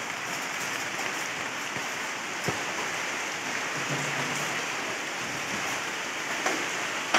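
Steady hiss of water, with one sharp knock about two and a half seconds in.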